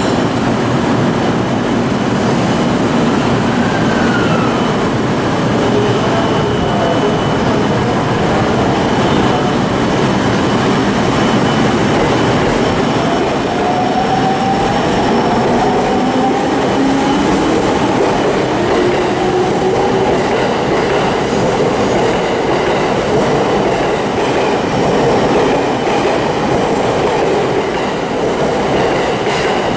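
JR commuter electric train running past close alongside the platform, with a steady rumble and wheels clacking over the rail joints. Partway through, its motor whine rises in pitch as it picks up speed.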